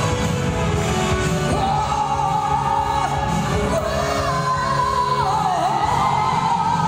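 A singer with a microphone over backing music through a PA system, holding long notes that slide between pitches.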